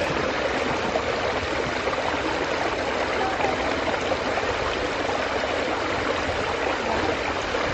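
Steady slosh and rush of shallow muddy water, stirred by legs wading through it and a fine net pushed along on poles.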